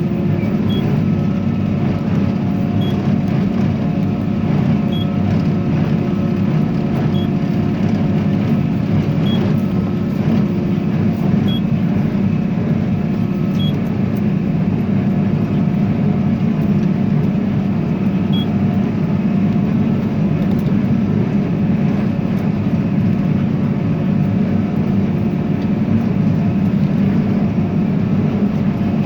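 Tractor engine running steadily under load while pulling a hay baler, its pitch holding even. A faint tick comes about every two seconds.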